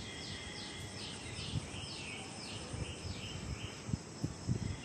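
A bird calling: a quick run of a dozen or so short falling notes, about three a second, that stops a little before the end, over a steady outdoor background hiss. A few soft low thumps near the end.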